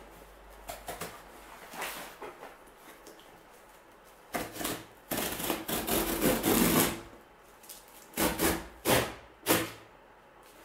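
Packing tape on a cardboard box being slit open with a blade and pulled off: light knocks of the box being handled, then a few seconds of scraping and ripping about halfway through, followed by three short rips near the end.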